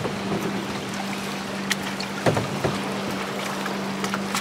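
Canoe on open lake water: small waves lapping against the hull, with a few paddle splashes and knocks, wind on the microphone and a steady low hum underneath.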